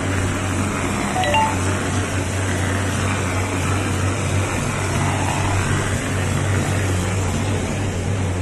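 Mortar spraying machine running steadily: a constant low hum with an even rush of mortar being sprayed from the gun onto a wall. A few brief clinks about a second in.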